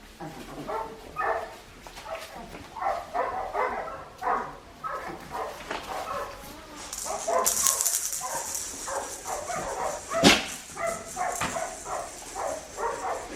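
Four-week-old Australian Shepherd puppies yipping and barking, many short high calls overlapping. A hiss comes in about seven seconds in, and a sharp knock about ten seconds in is the loudest sound.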